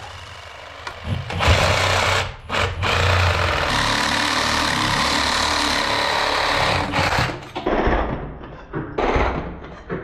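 Oscillating multi-tool cutting through an old lead toilet drain pipe. The buzzing cut starts about a second in, breaks off briefly, runs steadily for several seconds, then goes in short starts and stops near the end.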